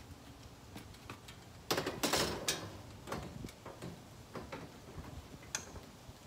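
A metal roof basket being set down onto a vehicle's roof crossbars: a cluster of clanks and knocks about two seconds in, then lighter taps and clicks as it is shifted into place.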